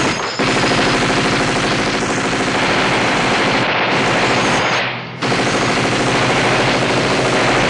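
Belt-fed machine gun firing long bursts of rapid automatic fire at an aircraft, with a brief break about five seconds in before the firing resumes.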